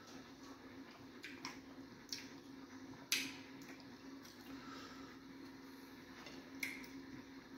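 Close-up eating sounds of fufu and egusi soup eaten by hand: wet squishes and mouth smacks of chewing, with a few short sharp clicks, the loudest about three seconds in, over a steady low hum.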